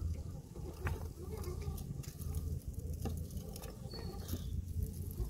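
Scale RC rock crawler crawling over loose rocks: scattered clicks and crunches of tyres and stones over a low steady hum.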